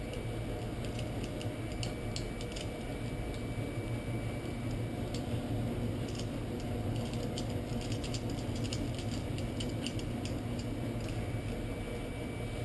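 Light metallic clicks and rattles of locking pliers and a dial-indicator mount being handled and clamped, scattered through, over a steady low hum.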